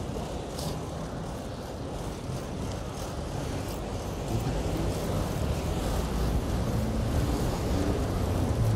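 Wind rushing over an action camera's microphone on a moving bicycle, with motor-vehicle traffic beneath it. A vehicle engine grows louder in the second half.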